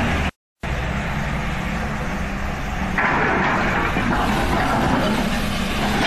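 Diesel engine of a Yonggong tracked scrap material handler running steadily as it swings and lowers its grapple; the sound drops out for a moment just after the start, and from about halfway through the engine sound turns harsher and brighter.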